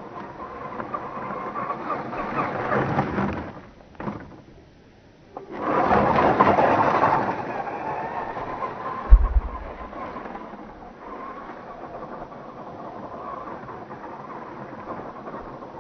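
Tamiya CC-01 Unimog radio-controlled truck's electric motor and gearbox whining as it drives over the dirt, swelling louder twice with a lull between. A short low thump about nine seconds in.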